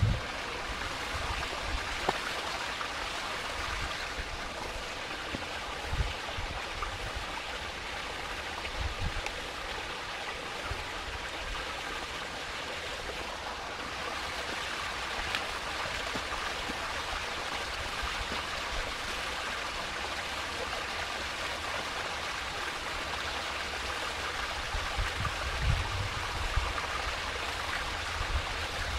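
Steady rushing outdoor noise, with a few low buffets of wind on the microphone.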